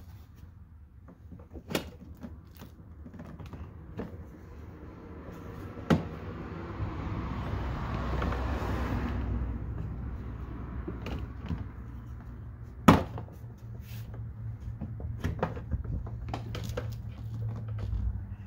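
Plastic lower front fascia of a Jeep Grand Cherokee WK2 being pried off by hand: scattered sharp clicks and knocks as its clips are levered and pop loose, the loudest about two-thirds of the way through. A broad rush of noise swells and fades in the middle, and a low steady hum comes in during the second half.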